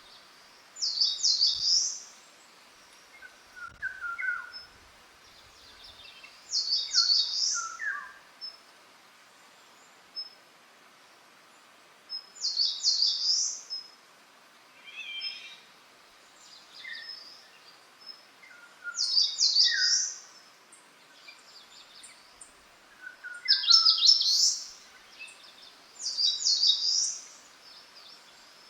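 Wild songbirds singing. One bird repeats a short, high-pitched song phrase about every six seconds, and in the gaps another sings shorter, lower notes.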